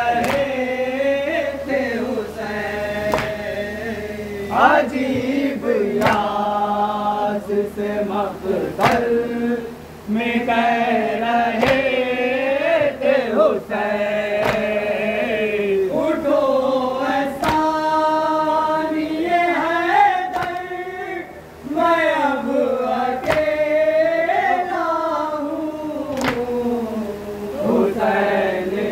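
Group of men chanting a Shia mourning noha (purdard noha) in unison, without instruments, punctuated by sharp chest-beating strokes (matam) about every second and a half.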